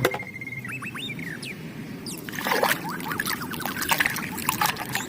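Water splashing and trickling as a muddy plastic toy is rinsed and scrubbed, starting about two seconds in. Before it, a brief high whistle-like tone that ends in a few gliding notes.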